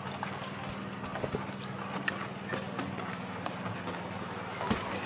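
Footsteps on wooden steps and decking: irregular knocks of shoes on the boards, over a steady low hum.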